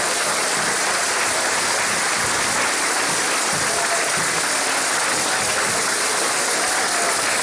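Congregation applauding: dense, steady clapping after a romagem group's song with instruments.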